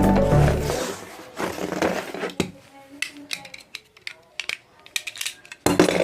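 Background music fading out within the first second, then scattered rustles and clicks of cardboard packaging being handled, and a short loud burst near the end.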